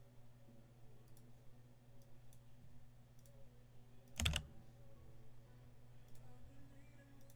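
Scattered faint clicks of a computer keyboard and mouse, with one louder knock about four seconds in, over a steady low hum.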